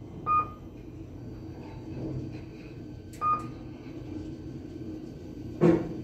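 KONE elevator car riding with a steady low hum. Two short electronic beeps sound about three seconds apart, and a thump comes near the end.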